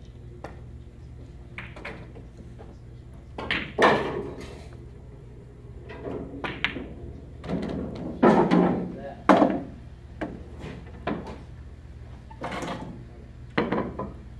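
Pool balls clacking on a billiard table as shots are played: a handful of sharp knocks, the loudest about four seconds in and again around eight to nine seconds in, over a low steady hum.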